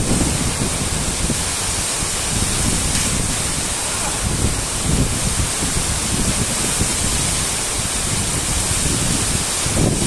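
Tall waterfall plunging into its pool: a steady rush of falling water, with uneven low buffeting of wind and spray on the microphone.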